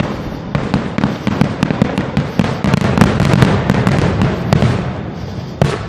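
Fireworks going off in quick succession: many overlapping bangs and crackles over a low rumble, with one sharper bang just before the end, after which the sound dies down.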